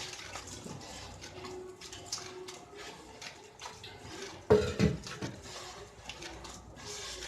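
Batbout dough being kneaded by hand in a bowl: soft, wet working sounds with small clicks, and two heavy thumps close together about four and a half seconds in.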